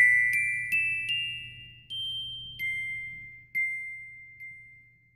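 Intro jingle of bell-like chime notes, glockenspiel-style. A few single notes are struck at slowing intervals, each left ringing. The last note is held and fades away near the end.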